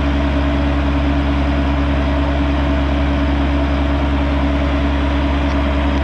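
Kubota excavator's diesel engine running steadily at a constant speed, loud and close.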